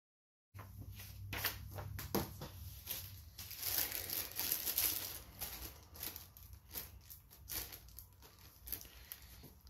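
Plastic parts bag crinkling and crackling as it is handled, starting about half a second in and loudest around four to five seconds in, over a steady low hum.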